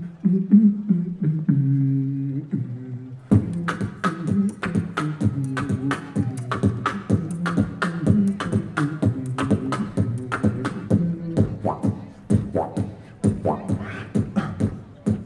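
Beatboxing into a microphone: a few seconds of low held vocal notes, then about three seconds in a fast, dense beatbox rhythm of mouth-made kick, snare and hi-hat sounds over a vocal bass line.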